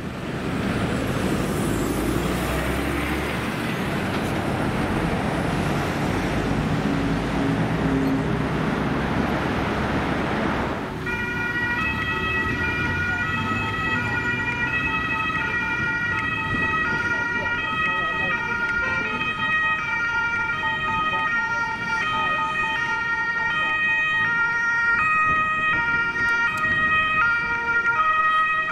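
Heavy truck and road traffic driving past, a broad rumble of engine and tyre noise. About eleven seconds in this switches suddenly to a German two-tone emergency siren (Martinshorn) on a Mercedes Sprinter ambulance, alternating steadily between two pitches.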